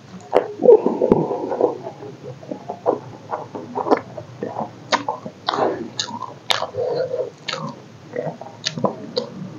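A person chewing a mouthful of rice and chicken curry: irregular wet mouth clicks and smacks, a few every second.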